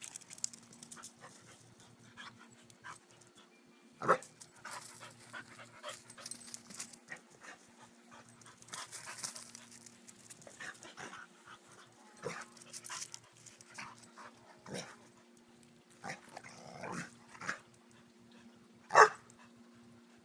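A dog playing rough, with scattered short, sharp dog sounds and scuffling. The two loudest sounds come about four seconds in and near the end.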